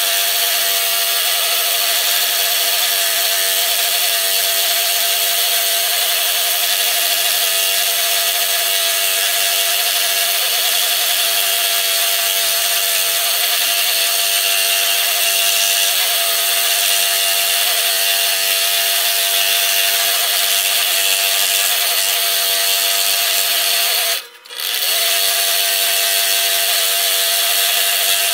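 Scroll saw running steadily while cutting the outer ring of a 3/8-inch cherry wobble bowl. It stops for a moment near the end and then carries on.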